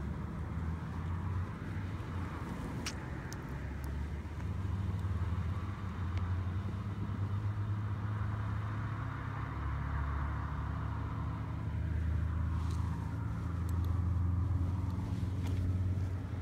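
Road traffic passing: vehicles go by one after another, each swelling and fading over a steady low rumble, with a couple of sharp clicks.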